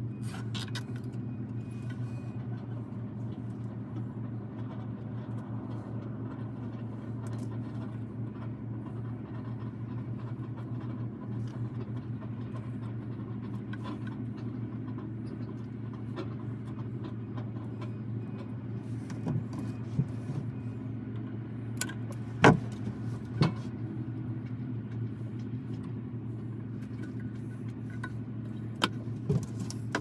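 A steady low mechanical hum, with scattered light clicks and small rattles from handling fibers and the splice closure's trays; the sharpest clicks come about two-thirds of the way through.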